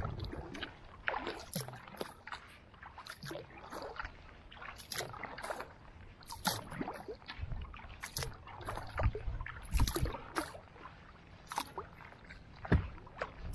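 Kayak being paddled: irregular splashes and drips of water as the paddle blades dip and lift on each stroke, with water running along the hull.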